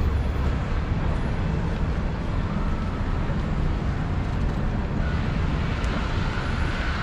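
Steady city street traffic noise with a heavy low rumble and no distinct single event.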